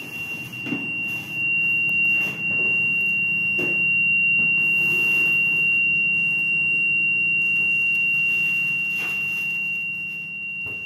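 A continuous high-pitched electronic buzzer tone, held steady on one pitch, over a low steady machine hum, with a few light knocks.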